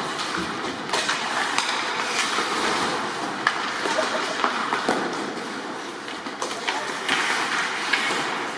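Ice hockey play: skates scraping across the ice under a steady hiss, punctuated by sharp clacks of sticks and puck against sticks and boards, with voices calling out.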